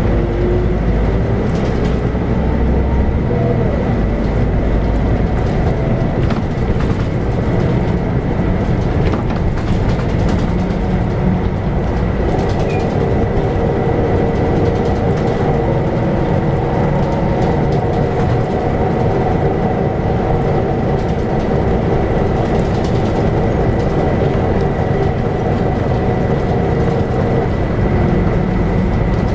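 A Scania K94UB bus under way: its 9-litre six-cylinder Scania DC9 diesel and ZF 5HP590 automatic gearbox running, with heavy road rumble and rattles. A steady whine sets in about twelve seconds in and holds until near the end, over a thin steady high tone.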